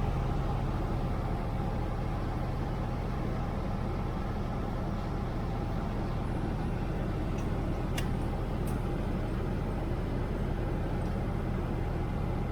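A Cessna 150's four-cylinder Continental O-200 engine and propeller running steadily in flight.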